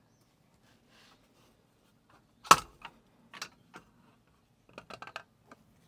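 A sharp click about two and a half seconds in, followed by a scatter of lighter clicks and taps: hands unplugging the wire from the distributor of a Mercruiser 5.0 marine engine and working at the distributor.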